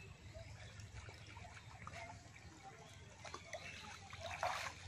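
Faint trickling and small splashes of shallow muddy water as hands feel through a ditch bottom for eels, with a louder splash near the end.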